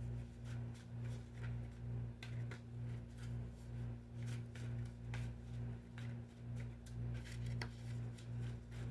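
Low steady hum that swells and fades about twice a second, with a few faint clicks scattered through it.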